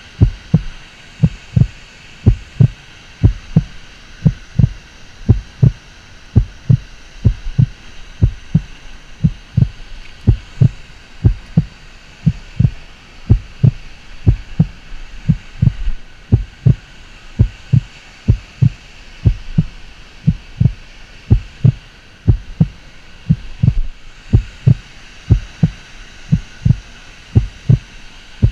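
Regular low thumps, about two to three a second, over a steady rushing hiss.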